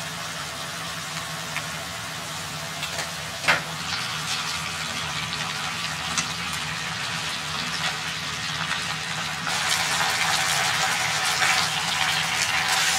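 Pork-wrapped green peppers sizzling in a frying pan as a butter and soy sauce glaze simmers down. The sizzle grows louder about two-thirds of the way in, and there is a single sharp tap a few seconds in.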